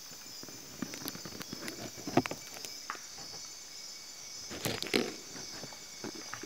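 Steady high-pitched chorus of night insects in tropical rainforest, with scattered crackles and rustles of leaves and twigs as a tapir moves through the undergrowth, loudest about two seconds in and again about five seconds in.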